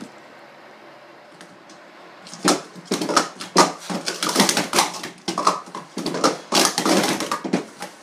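Plastic sport-stacking cups clattering in rapid, dense clacks as they are stacked up and brought down, starting about two and a half seconds in.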